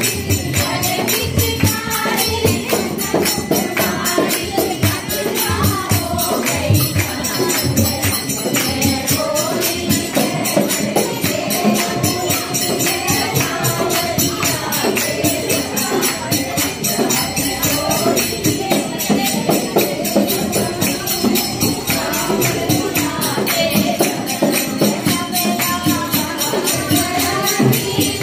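Festive Hindi song: group singing over a steady, busy percussion beat.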